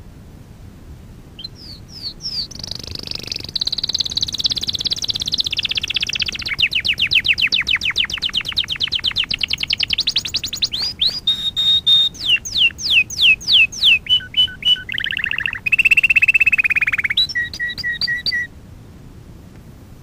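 Domestic canary singing one long song: fast trills of rapidly repeated high notes, then a slower series of downward-sweeping whistled notes, then a lower rolling trill and a few short clipped notes, stopping suddenly near the end. A steady recording hiss lies under it.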